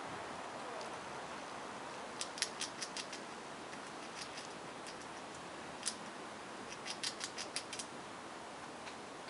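Eastern gray squirrel gnawing at food held in its paws, heard as bursts of small sharp clicks over a steady outdoor hiss. There is a run of clicks about two seconds in, a single louder click about six seconds in, and another quick run soon after.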